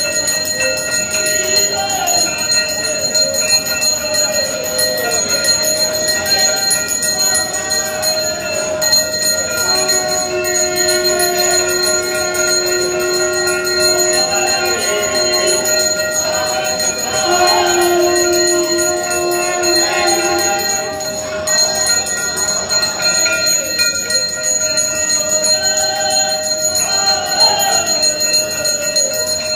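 Temple bells ringing without a break during the morning aarti, with several steady bell tones sounding together. A crowd's voices and singing rise and fall over the ringing.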